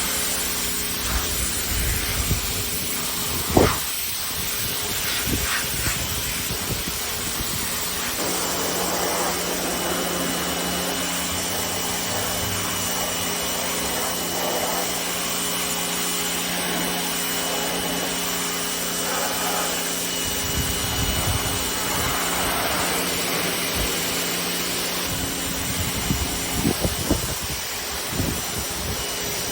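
Pressure washer running steadily, its pump and motor humming under the hiss of the water jet during spraying. There is a single sharp knock about three and a half seconds in, and a few thumps near the end.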